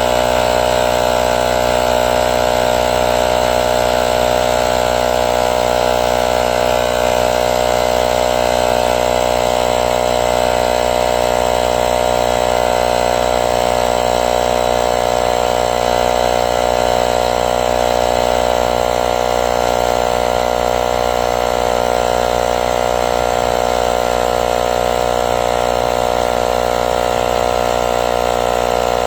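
Small portable electric air compressor built into a jump starter, running steadily with a constant buzzing drone.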